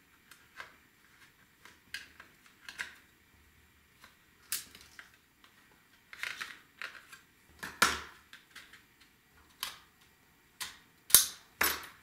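Irregular small clicks and short scrapes of a Digital Compact Cassette's metal slider being worked off its plastic shell with a pick. Louder snaps come near the end.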